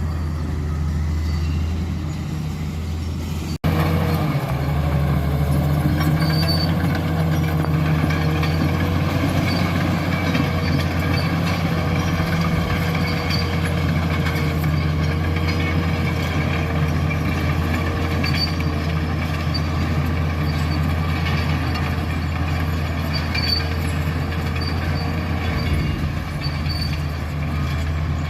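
Caterpillar bulldozer's diesel engine running steadily, with a steady higher whine over it and faint repeated high clinks. The sound cuts out for an instant about three and a half seconds in and comes back louder.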